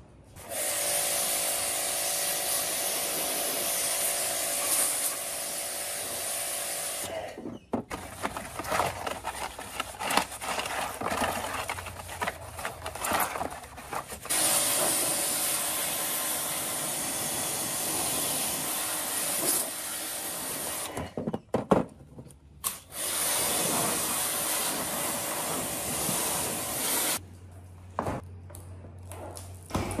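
Pressure washer spraying a high-pressure water jet onto a rusty steel refrigerator door. The spray comes in long, steady stretches with short pauses and a choppier stretch between them, and a low hum runs through the last few seconds.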